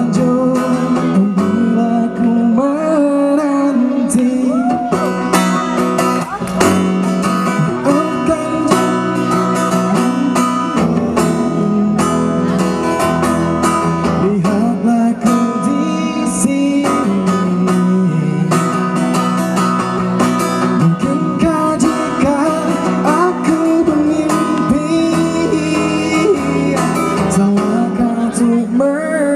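A man sings a slow melody to his own strummed acoustic guitar, with both voice and guitar picked up by microphones.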